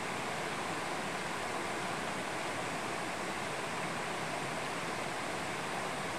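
Mountain stream running over stones, a steady, even rush of water.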